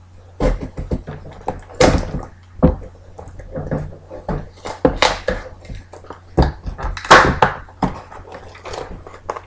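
A mailed package being opened by hand: irregular knocks, thumps and rustling as it is handled, with a longer, louder rustle about seven seconds in.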